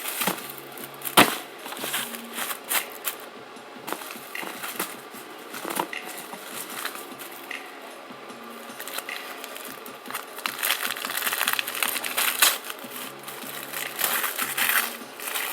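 Wrapping of a firecracker brick being torn open by hand: irregular crinkling and tearing, with a sharp snap about a second in.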